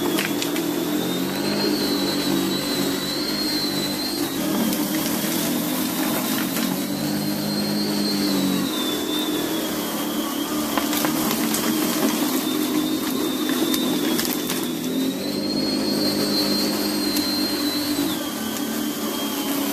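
Garland Roll & Comb 302W lawn scarifier running as it is pushed over artificial turf: a steady motor whine whose pitch rises and falls every few seconds, with scattered light clicks.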